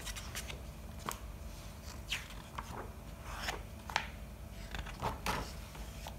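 Pages of a picture book being turned and smoothed flat by hand: a string of short paper rustles and swishes, about eight in all.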